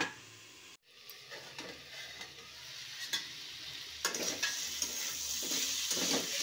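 Diced turnips frying and sizzling in a metal kadhai, stirred with a metal spatula that scrapes and clicks against the pan. The sizzle grows louder about four seconds in.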